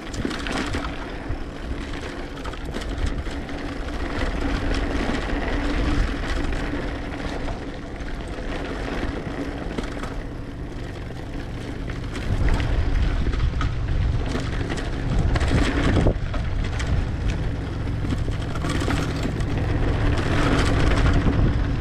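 Riding noise from a mountain bike on a dirt trail: wind blowing on the microphone, with tyres and bike rattling over the ground in short clatters. The wind noise gets louder about halfway through.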